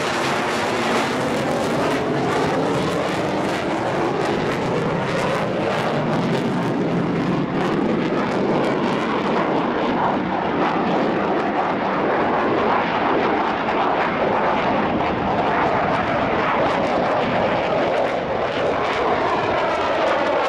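A Mitsubishi F-15J fighter's twin Pratt & Whitney F100 turbofans give a loud, continuous jet noise as it flies a display manoeuvre overhead. A phasing sweep falls early on and rises again near the end as the jet's distance and angle change.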